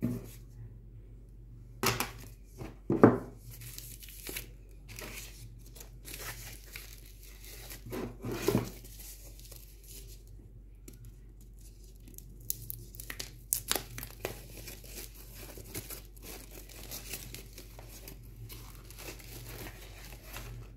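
Plastic packaging sleeve crinkling and rustling as a portable speaker is pulled out of it by hand, with irregular crackles and a few sharper handling knocks, loudest about two to three seconds in and again near the middle.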